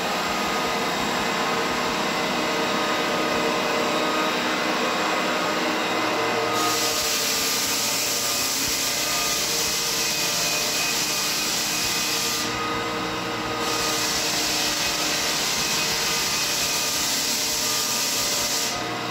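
Lägler Hummel drum floor sander running steadily, its motor humming and whining. About six seconds in the drum bites into the hardwood and a loud sanding hiss joins; it drops away briefly around thirteen seconds and then comes back. This is the first coarse 36-grit pass, stripping old black underlayment residue off the boards.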